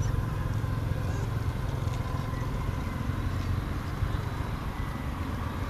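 Steady low rumble of outdoor background noise, with faint thin tones above it.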